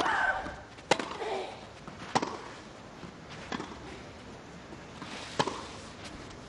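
Tennis rally: a serve and then the ball struck with rackets about every one and a half seconds, five hits in all. A player's shrill grunt rings out with the first two shots.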